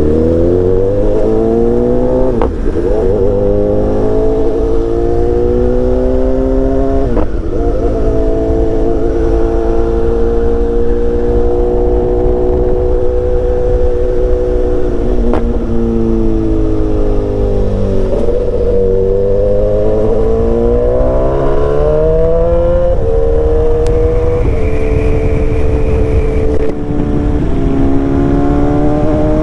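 BMW S1000XR's inline-four engine accelerating and shifting up through the gears, its pitch climbing and then dropping at each shift. Partway through it eases off and the pitch falls before it pulls again.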